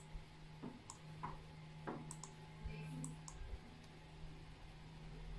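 Several scattered computer mouse clicks, faint and sharp, over a steady low hum.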